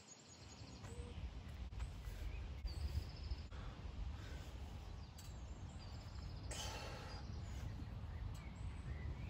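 Faint outdoor ambience: a low, steady rumble with a few short bird chirps and trills now and then.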